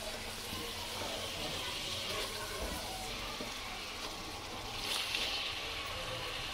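Sliced onions and tomato purée sizzling in hot oil in a large aluminium pot: a steady frying hiss that swells briefly about five seconds in.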